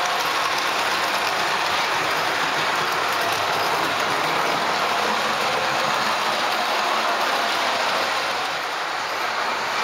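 O gauge Ace Trains Southern Railway Schools class model locomotive running on tinplate track: a steady rolling and running noise from its wheels and mechanism on the metal rails, easing slightly near the end.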